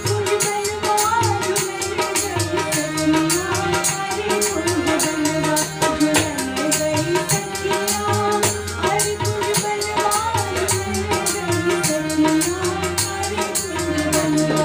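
Kajri folk music in a passage without words: a wavering melody over hand-drum strokes and a fast, even rattle beat.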